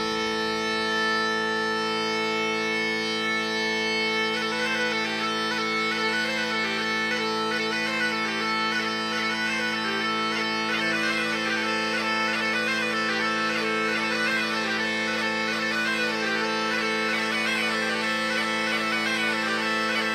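Bagpipe music: steady drones throughout, with a melody over them from about four seconds in.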